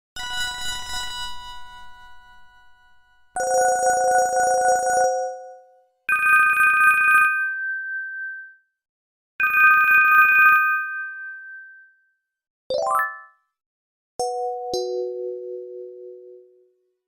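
Panasonic phone ringtones and alert tones played one after another with short pauses: a ringing tone that fades over about three seconds, three short two-note tones, a quick rising run of notes, and a falling two-note tone near the end.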